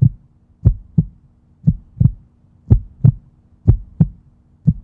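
Heartbeat sound effect: a steady lub-dub double thump about once a second, over a faint low hum.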